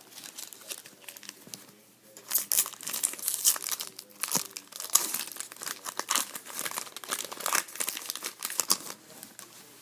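Foil hockey card pack wrapper being torn open and crumpled, a dense crinkling and crackling that starts lightly and turns loud after about two seconds.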